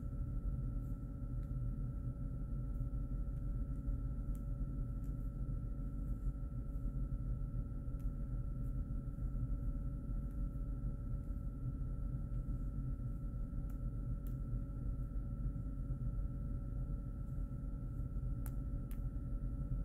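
Steady room hum: a low rumble with a faint steady high tone over it, and a few faint clicks now and then.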